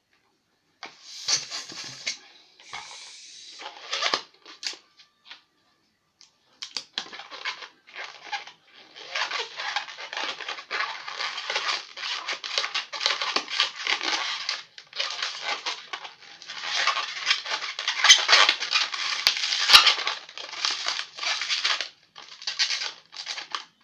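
Latex modelling balloon squeaking and rubbing as it is twisted by hand, in stretches with short pauses. It is loudest a little past the middle, where a couple of sharp clicks sound.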